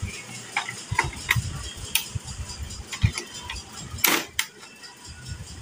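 Plastic clicks, knocks and light thumps as a hand pulls and pushes the drum unit in its slot inside an open HP Color Laser 150a printer, with a louder clatter about four seconds in.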